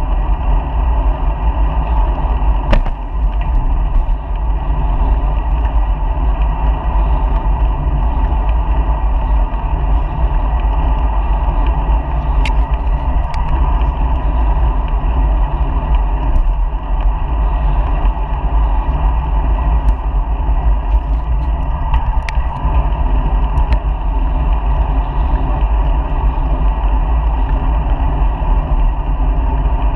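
Steady wind and road noise picked up by a bike-mounted GoPro while riding, heaviest in a low rumble of wind buffeting the microphone. A few sharp clicks or rattles cut through it here and there.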